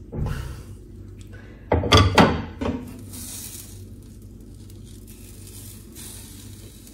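Kitchen clatter: a plate set down on a gas stove with a few sharp knocks about two seconds in. Then faint sizzling as a pat of butter melts in a nonstick frying pan while a wooden spatula pushes it around.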